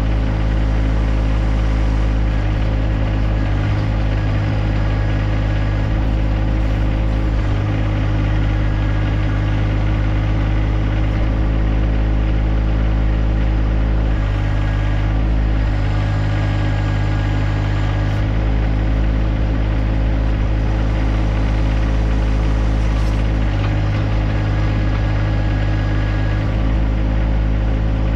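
John Deere 1025R compact tractor's three-cylinder diesel engine running steadily, its note shifting slightly about halfway through and again near the end.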